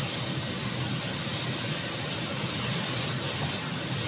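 Meat and mushroom filling sizzling steadily in a nonstick wok as it is stirred and turned with a wooden spatula.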